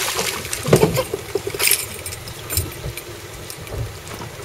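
Boat engine idling low, with a few splashes from a hooked dogtooth tuna thrashing at the surface beside the hull in the first couple of seconds.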